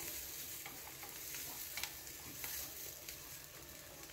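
Carrot kinpira sizzling in oil in a frying pan while being stirred, with a few sharp clicks of the utensil against the pan.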